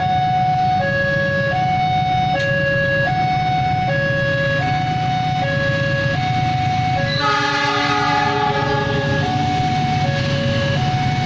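Level-crossing alarm sounding its two alternating tones, switching about every three-quarters of a second, over a steady low rumble. About seven seconds in, the approaching diesel locomotive sounds a horn blast of about two seconds.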